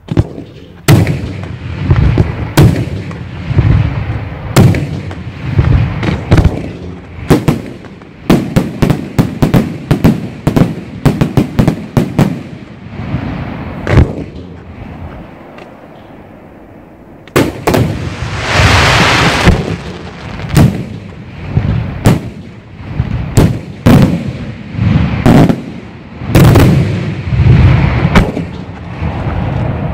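Aerial firework shells bursting in a run of loud bangs, roughly one a second, with a fast string of cracks about a third of the way in. A little past halfway comes a hissing crackle lasting about two seconds.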